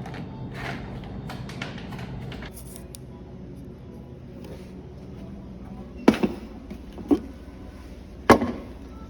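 Objects being handled indoors: light clicks and rustling at first, then a few sharp knocks, the loudest about eight seconds in.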